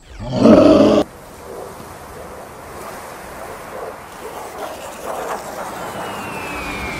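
A cartoon monster's roar, about a second long and cut off abruptly. A quieter, even rushing sound follows, and near the end a high whistle falls steadily in pitch, like a bomb dropping.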